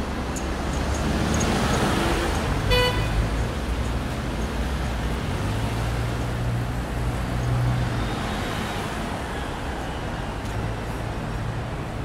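City street traffic: a steady wash of passing cars and engines, with one short car-horn toot about three seconds in. A vehicle's low engine hum grows louder for a few seconds in the middle.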